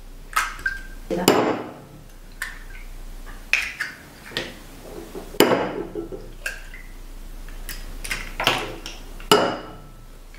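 Eggs tapped against the rim of a porcelain bowl and cracked open one after another: a series of sharp, irregularly spaced taps and clinks, each with a brief ring from the bowl.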